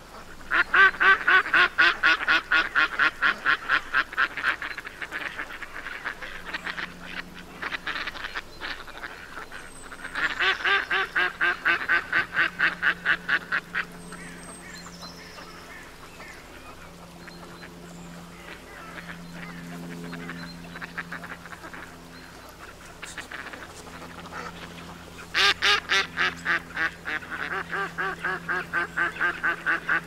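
Domestic ducks quacking in rapid runs of about eight quacks a second: a long run at the start, another about ten seconds in, and a third near the end, with quieter stretches between.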